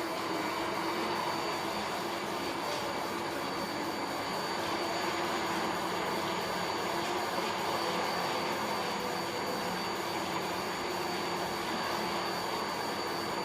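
Steady mechanical running noise: an even hiss with a low hum and a thin high whine, unchanging throughout.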